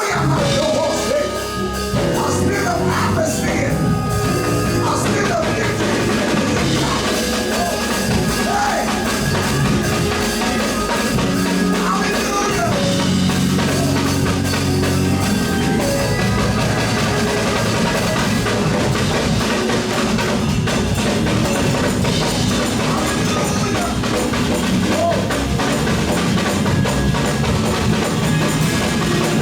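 Live gospel praise-break music: a band with drum kit playing loud and continuous, with voices singing over it.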